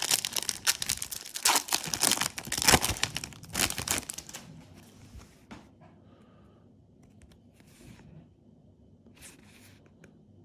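Foil booster-pack wrapper being torn open and crinkled in the hands, a dense crackling for about four seconds that then stops, leaving a few faint rustles later on.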